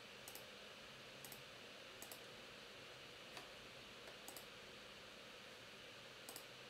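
Near silence over a steady fan hiss, broken by about six faint, sharp clicks, most of them in quick pairs, spaced a second or so apart.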